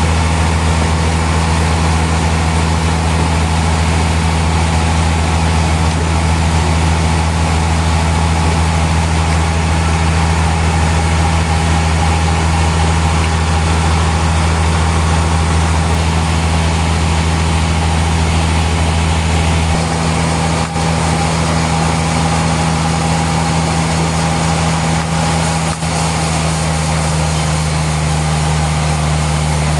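Sawmill machinery running: a steady, loud low hum over a constant noisy wash, the deepest part of the hum easing off about twenty seconds in.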